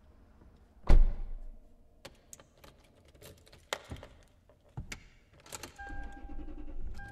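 Sound effects opening a song: a heavy thump about a second in, then scattered jangling clicks and rattles, with a steady tone and a low rumble starting in the last second or so.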